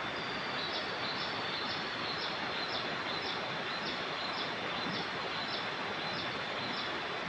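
Steady outdoor riverside ambience: an even rushing noise, with a short high chirp repeating about twice a second over it.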